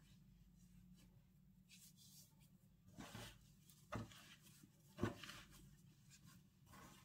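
Near silence with three soft knocks or rustles about a second apart, from something being handled.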